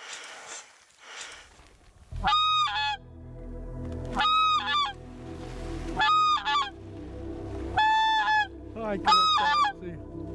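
Goose mouth call blown to call in common cranes: five loud two-part calls from about two seconds in, spaced about two seconds apart, each a held note that drops into a short lower one.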